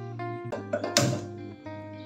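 Background guitar music with held notes, and a single sharp knock about a second in.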